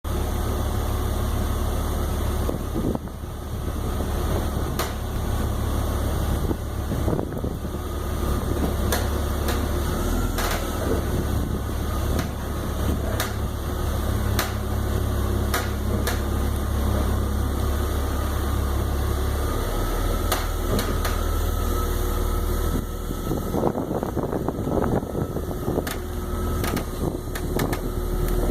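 Sharp cracking and popping clicks from a 2002 BMW 330Ci, coming irregularly a second or two apart over the car's steady low drone, and growing busier near the end. They are the unexplained cracking and popping noises the owner is recording.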